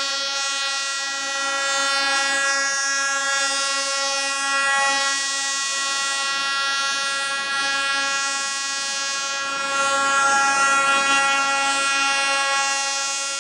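Train horn held in one long, continuous, steady blast at an unchanging pitch, rich in overtones, as the train runs slowly at street level.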